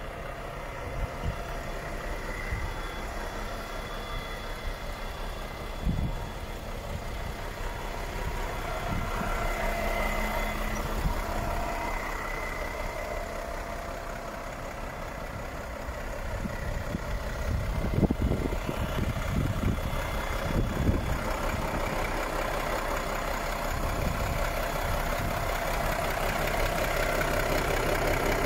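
Volvo FH 540 truck's 13-litre straight-six diesel idling steadily, growing louder near the end as it is heard closer to the engine bay. A few dull thumps are heard over it.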